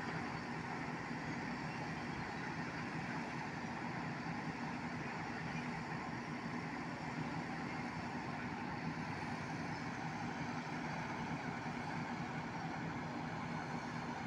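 Heavy diesel engine of a mobile crane running steadily during a bridge girder lift, a low even drone with no change in pitch.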